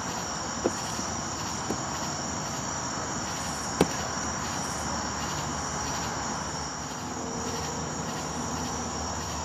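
A steady chorus of crickets chirring. A few faint clicks sound in the first two seconds, and one sharp click comes just before the four-second mark.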